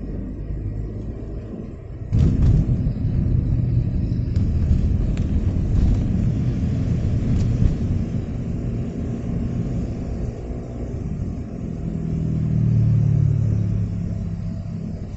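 Low rumble of a car moving slowly through wet traffic, heard from inside the cabin. It gets suddenly louder about two seconds in and swells again near the end, with a few faint ticks.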